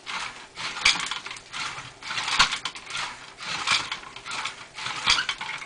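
RoboRaptor robot walking through a turn command: its geared leg motors whirring, with its plastic feet clattering and scuffing in four rattling bursts about a second and a half apart. The feet are sliding on the slippery floor rather than gripping, so it slides instead of turning.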